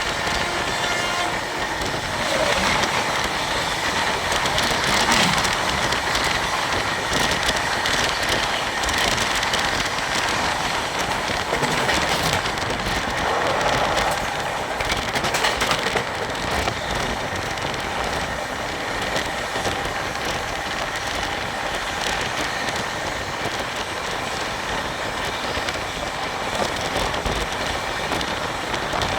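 Train running along the track: a steady noisy rumble with many short clicks and clatter from the wheels on the rails.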